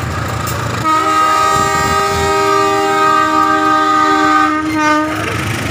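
Diesel locomotive's air horn sounding one long blast of several notes together, beginning about a second in and lasting some four seconds, sagging in pitch as it cuts off. Beneath it is the low rumble of the passing train.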